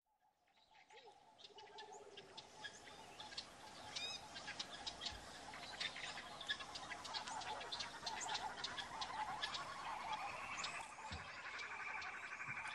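Forest ambience of many birds chirping and calling, fading in from silence. A steady rapid trill joins about ten seconds in.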